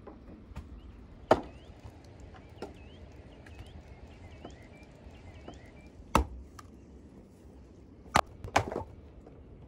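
Axe chopping firewood on a wooden chopping block: four sharp strikes, the last two close together near the end.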